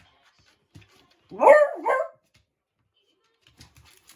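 Beagle giving one loud two-part bark-howl about a second and a half in, its pitch falling, aimed at a snack stuck under the refrigerator. Faint clicks follow near the end.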